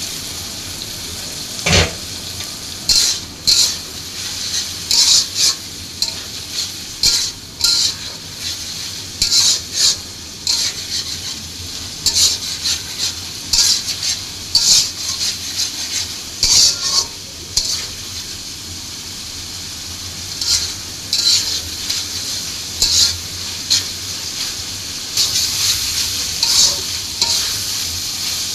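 Food sizzling in hot oil in a pan while a spatula stirs and scrapes it in repeated short strokes. A sharp knock of the utensil against the pan comes about two seconds in.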